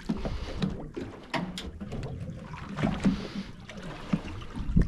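Water sloshing and lapping against the side of an aluminium boat, with irregular small knocks and a louder thump near the end.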